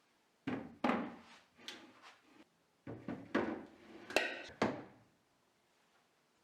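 Things being handled in a kitchen: a run of knocks and clatters, about ten in all, the loudest with a brief ring about four seconds in, then quiet.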